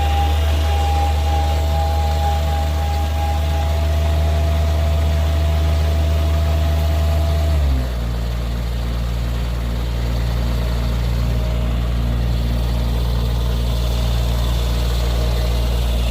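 A vehicle's engine running at a steady speed, its low hum dropping to a lower pitch about halfway through.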